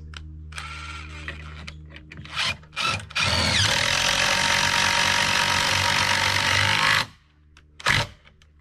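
Cordless drill driving a long Ledger Lok structural screw through a wooden leg into the bed frame. A few short bursts come first, then about four seconds of steady driving that opens with a rising whine and cuts off suddenly, followed by one brief click.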